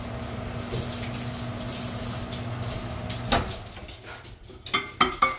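Steady machine hum that cuts off abruptly about three seconds in, followed by several sharp clicks and knocks.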